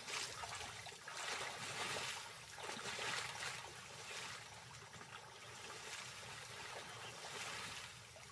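Water splashing and sloshing as lions wade through a shallow river, in uneven surges with the loudest a few seconds in.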